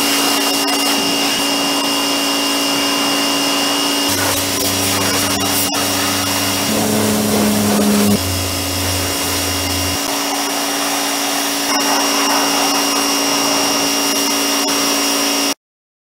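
Pressure washer running, its motor and pump humming steadily under the hiss of the water jet spraying the ATV's muddy front suspension and frame. The sound cuts off suddenly near the end.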